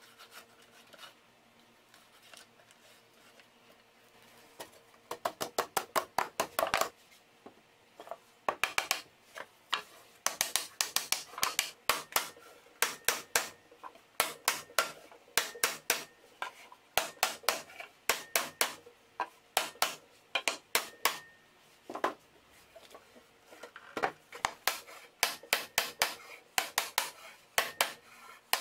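Quick bursts of sharp wooden knocks and taps as glued dovetail joints of a hardwood shelf are pushed and tapped together. The knocks begin about five seconds in and come several a second, group after group.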